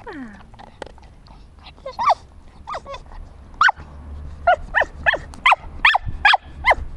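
Cockermops (cocker spaniel–pug cross) dog whining in short, high yelps: a few scattered ones, then a quick run of about four a second over the last few seconds.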